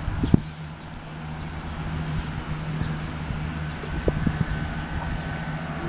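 Steady low hum with wind rumbling on the microphone, and a few soft low thumps.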